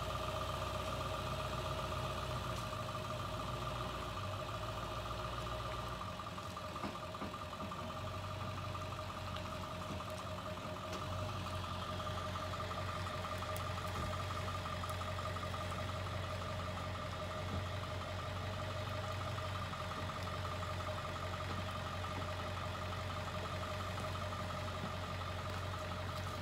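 Ford F-350 pickup truck engine idling steadily, with a constant pitched hum over a low engine note.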